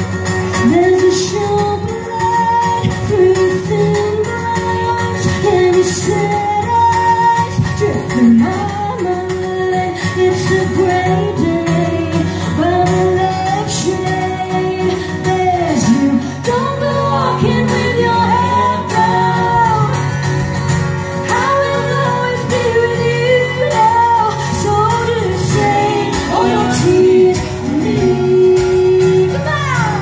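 Live band music: a female lead vocal sung over strummed acoustic guitars, with a second female singer adding backing vocals.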